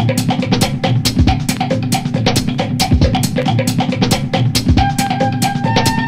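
Background music with a steady drum-kit beat, with bass drum and snare. Held tones join near the end.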